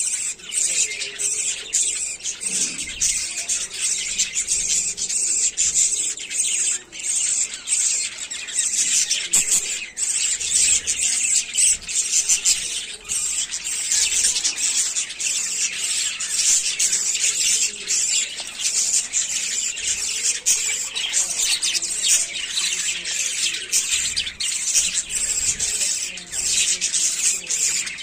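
A flock of budgerigars chattering continuously, a dense mix of rapid, high-pitched chirps and warbles with no pause.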